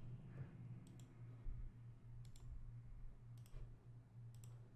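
Faint computer mouse clicks in quick pairs, about four times roughly a second apart, over a low steady hum.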